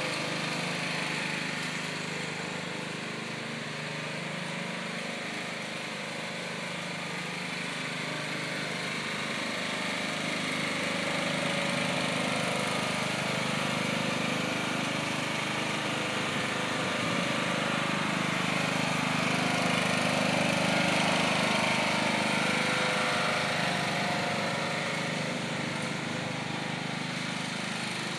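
Riding lawn mower's small engine running steadily as it tows a dethatcher rake across the lawn, growing slowly louder to a peak about two-thirds of the way through and easing off near the end.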